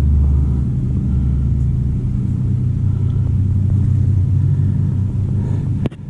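A loud, steady low rumble, like a motor running, that drops away suddenly near the end, followed by a few sharp knocks.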